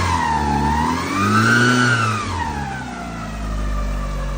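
Mitsubishi Lancer Evolution V's 4G63 turbo four-cylinder engine revved once and settling back to idle, with a loud whine from the belt drive that rises and falls in pitch with engine speed. The whine appeared after the timing belt and pulleys were replaced; the owner suspects an overtightened balance shaft belt.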